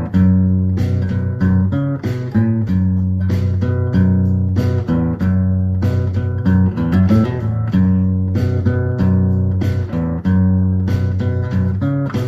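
Background music: plucked guitar with a bass line and a steady beat.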